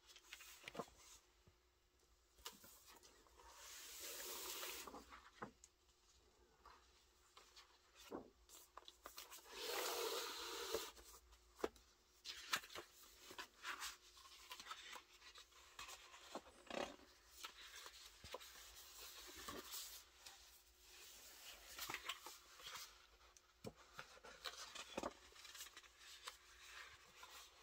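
Pages of a large hardcover photobook being turned and smoothed down by hand: faint paper swishes and rubbing with small ticks, with longer page sweeps about four and ten seconds in.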